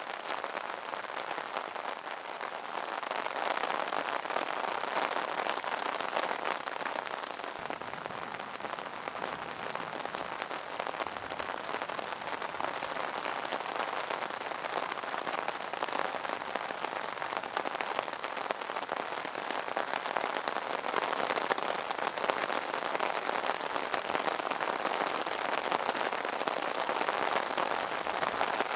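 Rain falling on an umbrella: a dense, steady patter of drops on the taut canopy.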